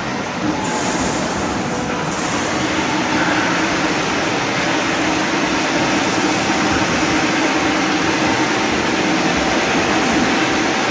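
Steady, loud din of an amusement arcade while basketball hoop-shooting machines are in play.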